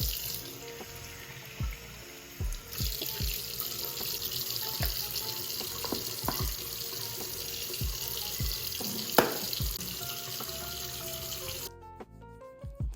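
Bathroom sink tap running, with water splashing as a face scrub is rinsed off; the water shuts off suddenly about a second before the end.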